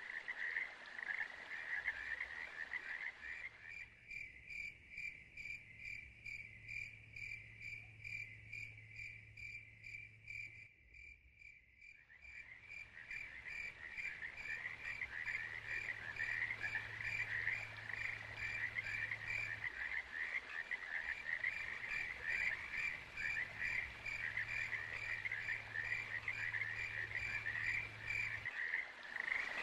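A chorus of frogs calling: many overlapping croaks in a dense, fast pulsing, with one regular train of calls standing out for much of the time and a faint low hum beneath it in stretches.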